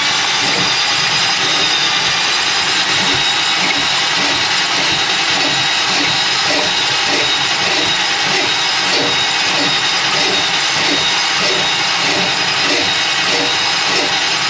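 Motorised drain-cleaning machine running steadily while clearing a kitchen drain line clogged with grease.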